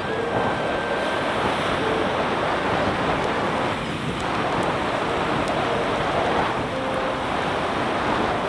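Steady rush of sea surf washing on the shore, mixed with wind on the microphone.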